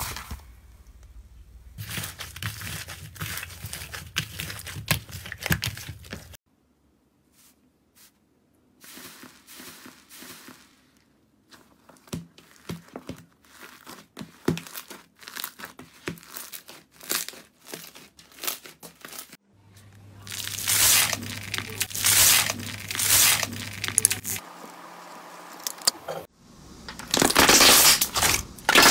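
Hands working slime, giving dense runs of crackling, crinkling clicks and pops, across several short clips that change abruptly a few times.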